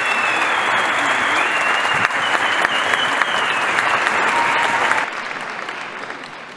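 Large concert audience applauding, with a few long high tones riding over the clapping. The applause drops in level about five seconds in and fades away.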